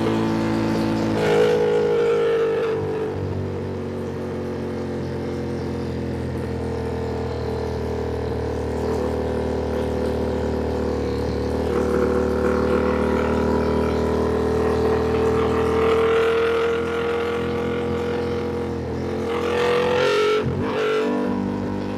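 Ducati Panigale V2's V-twin engine running under way, holding a fairly steady pitch that slowly rises and then eases back, with a quick dip and change in pitch near the end.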